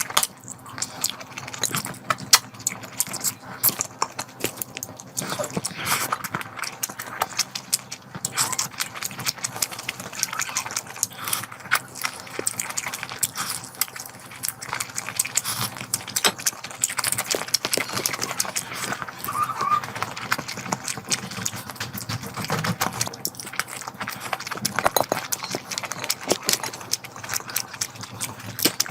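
Close-miked wet chewing and lip smacking of a person eating curry, a steady stream of quick clicks and smacks with no talking.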